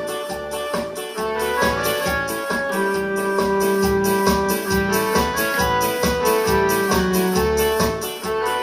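Electronic keyboard playing dance music: a melody of held notes over the keyboard's steady programmed beat.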